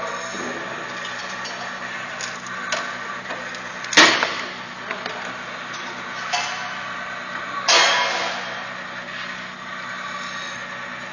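Bench-top heated press machine with a steady hum, and two loud metallic clanks about four seconds in and near eight seconds, the second trailing off over about a second. Lighter clicks come in between.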